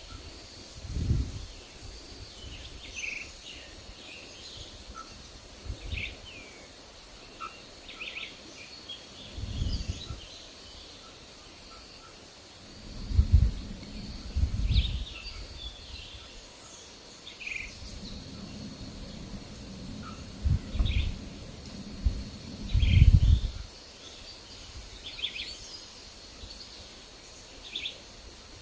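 Forest birds giving short, scattered chirps, with wind gusting on the microphone as low rumbles several times, strongest about halfway through and again near the end.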